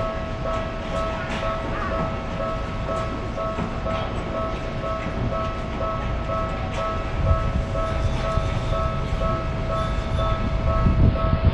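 Train running: a low rumble that swells about seven seconds in and again near the end, with steady held tones above it and scattered clicks.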